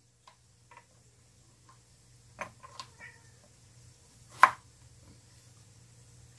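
Chef's knife cutting through a long eggplant and knocking on a wooden chopping board: a few soft taps, then one sharp knock about four and a half seconds in.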